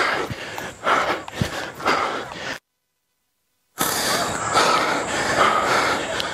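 A runner breathing hard after a sprint, close on a body-worn mic: heavy noisy breaths about once a second. The sound drops to dead silence for about a second, two and a half seconds in, then comes back as a steadier rush of noise.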